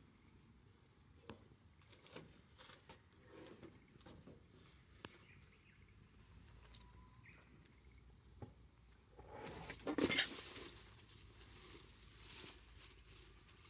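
Wood campfire crackling: sparse faint pops and snaps, with a louder burst of crackling noise about ten seconds in.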